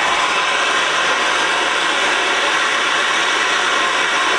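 Handheld gas torch burning with a steady, loud hiss, its flame heating a steel hammer head in a vise so it can be bent straight.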